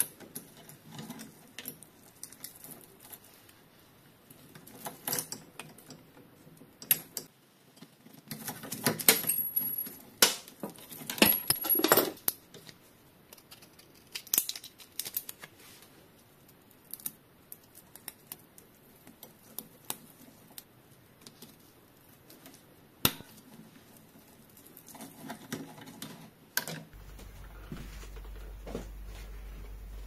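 Scattered metallic clinks, clicks and knocks of tools and bicycle parts being handled, busiest about a third of the way in. A steady low hum comes in near the end.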